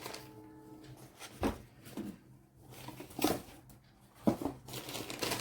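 Soft handling sounds: a few separate light knocks and rustles of small items and packaging being handled.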